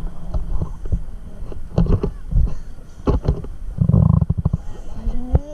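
Low wind buffeting and handling knocks on a small action-camera microphone, with a heavier rumbling gust about four seconds in. A voice starts a rising call near the end.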